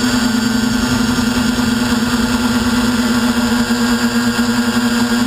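DJI Flame Wheel F450 quadcopter's brushless motors and propellers running steadily in flight: a loud, even hum with a higher whine, heard from a camera mounted on the airframe, with rough low wind rumble underneath.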